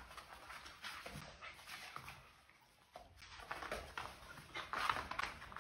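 Two dachshunds play-wrestling, making short, irregular dog noises, loudest about five seconds in.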